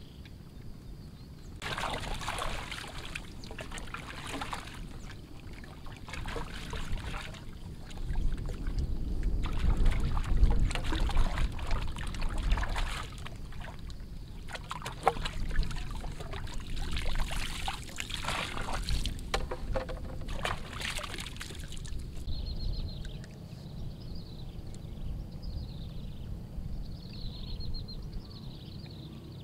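Lake water splashing, sloshing and pouring in irregular bursts as a pipe is dipped and worked in the shallows. From about two-thirds of the way through, the splashing stops and a run of short high chirps is heard.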